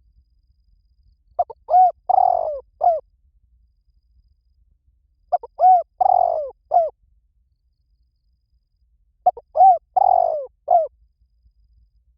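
Spotted dove cooing: three identical song phrases about four seconds apart, each a quick run of short low coos with one longer drawn-out coo in the middle.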